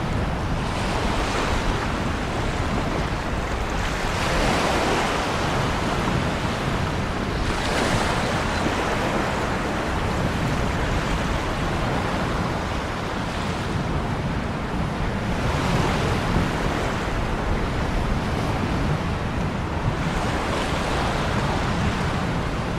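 Ocean surf: waves breaking and washing in, the hiss swelling every few seconds as each wave breaks, over a steady low rumble.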